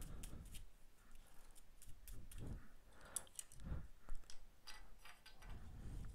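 Trading cards and plastic card sleeves being handled: light rustling, sliding and clicking of plastic, with a couple of dull bumps about two and a half and nearly four seconds in.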